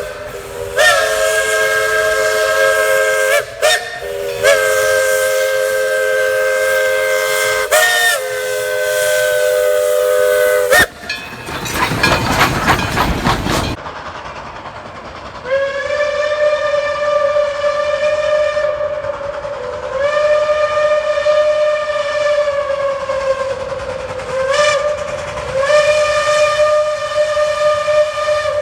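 Steam locomotive whistles. A chime whistle sounds a chord in several long blasts, then comes a few seconds of loud, even rushing noise. After that a second locomotive's single-note whistle is blown in long blasts with one short toot among them.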